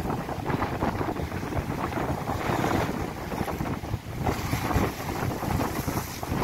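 Wind buffeting the microphone over surf breaking and washing against a concrete sea wall, the hiss of the wash swelling a couple of times.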